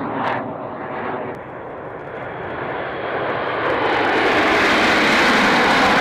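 Aircraft engine noise, a steady rushing roar that grows louder from about halfway through as an arriving aircraft comes closer.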